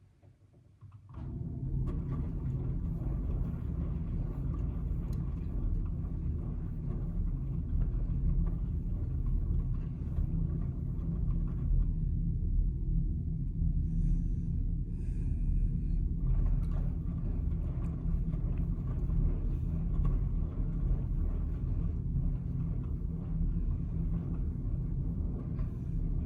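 Miele W1 front-loading washing machine tumbling a very full load of wet towels: a steady low rumble from the turning drum that starts about a second in.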